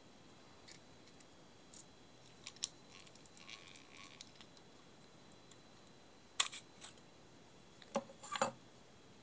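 Scattered small clicks and light knocks from a Shakespeare Wonderspin 2661 closed-face spinning reel being handled, its handle and parts taken off and fitted back. The clicks come irregularly, with the sharpest ones in two short clusters in the second half.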